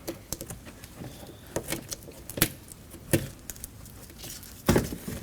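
Plastic door water shield being peeled off its sticky butyl sealant: scattered light crinkles and ticks, with a louder rustle near the end.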